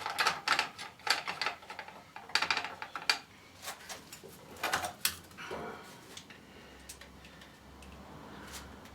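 Clicks, clinks and knocks of small hard parts and tools being handled, a quick run of them in the first five seconds, then only a few faint ones over a low hum.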